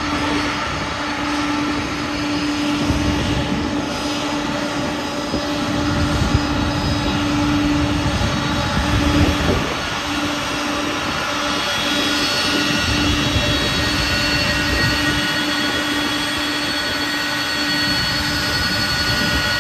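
A Boeing KC-46A Pegasus tanker's two Pratt & Whitney PW4062 turbofans running at taxi power as the jet rolls by. The sound is a steady jet roar with a whine of several steady tones, and the higher whine grows stronger as the aircraft turns toward the listener near the end.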